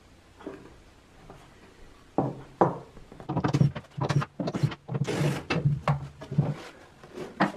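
Cordless drill driving screws into the wooden motor guard, running in a rapid series of short bursts with a low motor hum from about two seconds in. Before that there are only a few faint wooden knocks.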